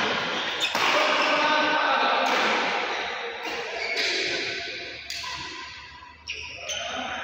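Badminton doubles rally: racket strings striking the shuttlecock several times as sharp cracks, mixed with shoes squeaking and scuffing on the court surface, in a large hall.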